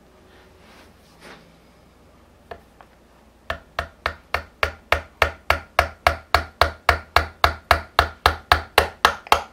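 Small hammer tapping the metal connecting pin into the end of a Shimano hydraulic brake hose held in a hose holder in a bench vise, driving the pin home. There is one tap about two and a half seconds in, then a steady run of sharp taps at about three and a half a second from about three and a half seconds in.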